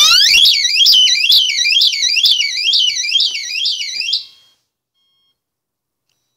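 Piaggio anti-theft alarm siren set off by moving the vehicle: a loud, high warbling tone sweeping up and down about three times a second. It cuts off about four seconds in.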